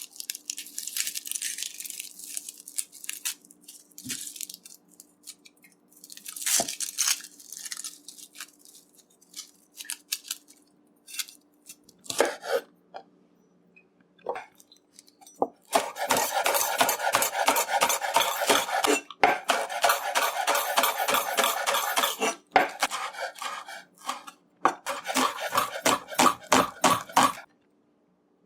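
Kitchen prep: a knife and utensils on a cutting board, with scattered scrapes and rustling at first. Past the middle comes a long run of rapid chopping strokes that stops suddenly near the end.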